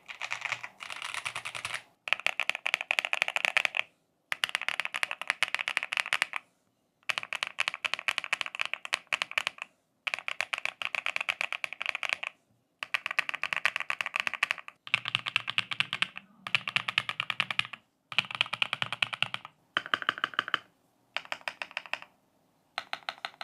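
Rapid typing on a custom-built ROG Night Magic EX mechanical keyboard fitted with gold linear switches and white translucent keycaps, as a sound test of the switches. The typing comes in about a dozen fast runs of clacks, each a second or two long, with short pauses between them.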